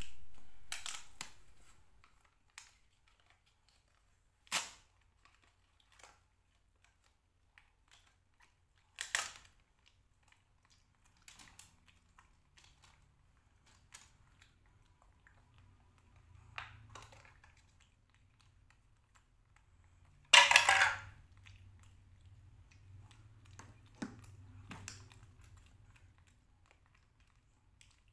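Thin clear plastic food container being handled and squeezed: scattered sharp clicks and crackles, with a longer, louder crackling burst about twenty seconds in, over a faint low hum.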